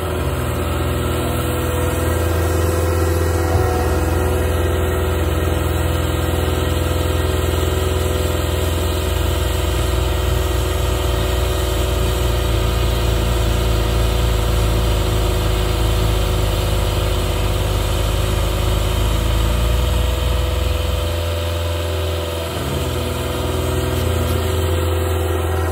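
Cat 279D compact track loader's diesel engine running steadily at high idle, powering a hydraulic Skid Pro 84-inch snowblower as it throws snow. The engine note sags briefly a little before the end, then recovers.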